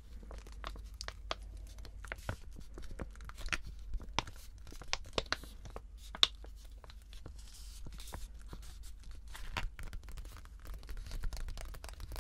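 Fingertips and nails tapping and rubbing on a crinkly sheet-mask packet, with the packet crinkling as it is handled. The clicks come at an irregular pace, with one sharper click about six seconds in.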